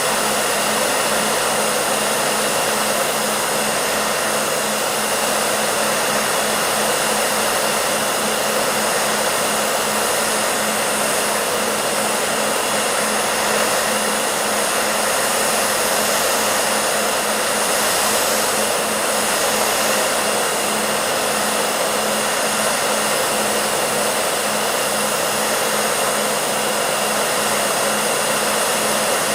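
Hair dryer running steadily: an even rush of blown air over a constant motor hum and whine.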